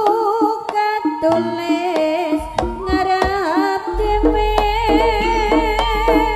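Jaranan music from a Javanese ensemble: a wavering melody line that moves in steps over frequent kendang drum strokes. A deep steady low tone comes in a little past the middle.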